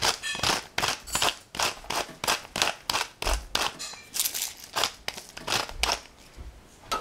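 Hand-turned pepper mill grinding, a steady run of short scratchy grinds about three a second.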